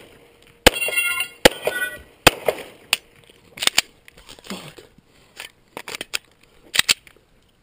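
Glock 35 pistol shots fired in a string, about a dozen sharp reports with gaps of under a second, some followed by a brief metallic ringing.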